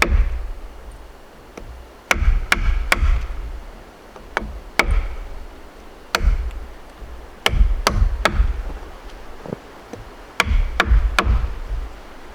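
A wooden baton repeatedly striking the spine of a fixed-blade knife, driving the blade through wood to split it. The strikes are sharp knocks with a heavy thud, coming in quick groups of two or three, about a dozen in all.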